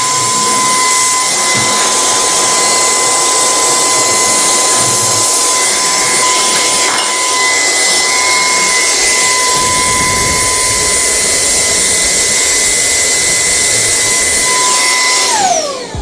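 NUUK REN GO cordless mini vacuum cleaner running at full speed with a steady high whine, then switched off near the end, its motor whining down in pitch as it stops.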